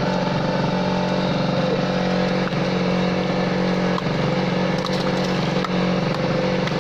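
A boat engine running steadily at a constant speed, a low even drone.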